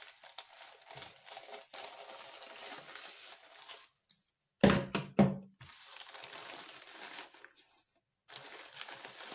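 Packaging of a replacement phone battery being crumpled and torn open by hand, in long rustling stretches, with a few loud knocks about halfway through.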